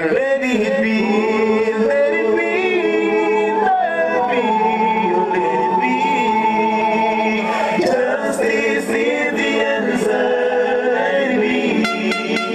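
Recorded song with sung vocals and sustained held notes, played over a sound system at a sound clash.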